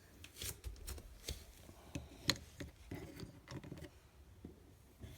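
A series of irregular light knocks and clicks, the sharpest about two seconds in, with faint rubbing between them.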